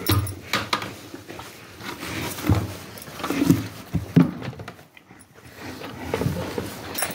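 A cow eating chopped green fodder from a concrete manger: irregular rustling, chewing and knocking, loudest between about two and a half and four and a half seconds in.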